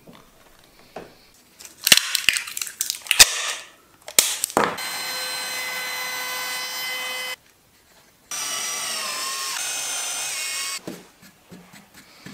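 A few sharp knocks, then a handheld router mounted upside down under a workbench as a router table runs and cuts a small strip of wood in two passes of about two and a half seconds each. In the second pass the pitch wavers and dips under the cutting load.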